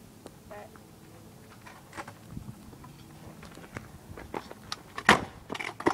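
Stunt scooter clattering on paving slabs as a trick is tried: scattered clicks and knocks that grow busier toward the end, with one loud sharp clack about five seconds in.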